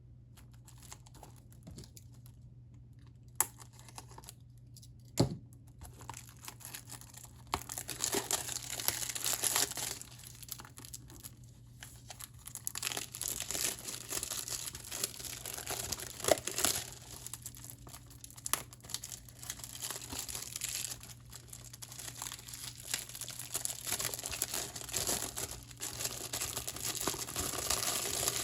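Plastic shrink wrap on a 4K Blu-ray case being torn and crinkled off in irregular bursts, after two sharp clicks about three and five seconds in.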